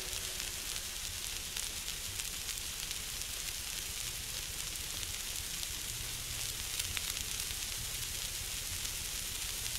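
Steady hiss and crackle of surface noise from an Edison Blue Amberol cylinder record. The stylus is still tracking the grooves after the recorded music has ended.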